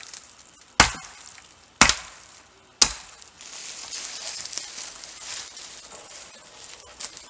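Three sharp wooden knocks about a second apart. After them comes a steady crackling rustle of dry twigs and brush as a long pole is carried through the undergrowth.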